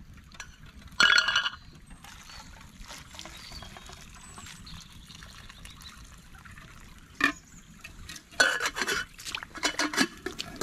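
Small metal camp pot and cup handled at a campfire: liquid pouring and metal clinking in a loud burst about a second in, a knock around seven seconds, then a run of clinks and clatter near the end, over a steady low background noise.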